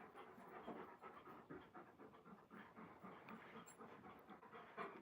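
Alaskan Malamute panting faintly, in quick even breaths about three a second.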